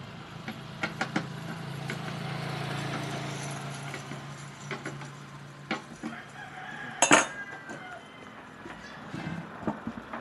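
Metal clinks and knocks of a T-handle spark plug wrench being fitted and worked on a small two-stroke portable generator, the sharpest about seven seconds in. A rooster crows in the background.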